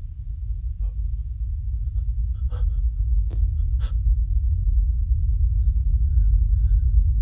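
Deep low rumble swelling steadily louder, a horror-film sound-design drone. A few short, sharp gasps break over it between about two and a half and four seconds in.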